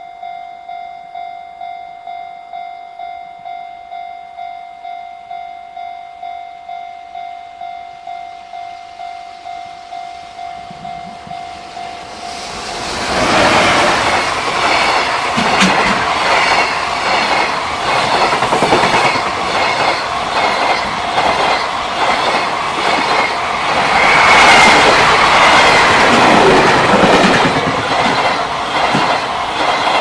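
A Japanese level crossing's warning bell rings in an even, repeating pulse. About twelve seconds in, a JR Freight container train passes close by and drowns it out. The container wagons' wheels clatter loudly and rhythmically over the rail joints.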